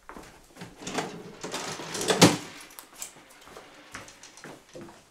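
Movement and handling noises: rustling with scattered knocks, the loudest a sharp knock about two seconds in.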